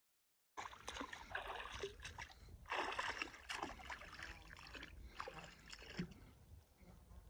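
Water splashing and lapping close to the microphone just above the pond surface, an uneven run of small splashes and trickles that quietens after about six seconds.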